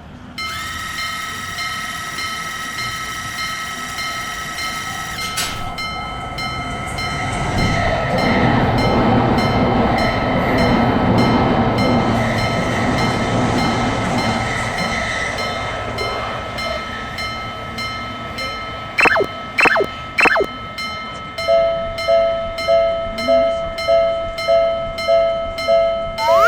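A Japanese level-crossing warning bell ringing in a quick, steady rhythm as a train rushes past, its noise swelling through the middle and fading away. Near the end come three short rising toots, then a pulsing two-note tone.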